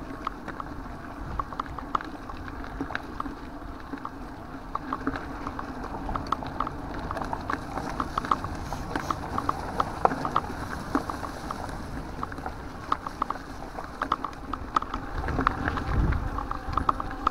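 Bicycle rolling over a dirt and gravel track, with many light clicks and rattles from the bike over the bumps. A low rumble of wind on the microphone swells about fifteen seconds in.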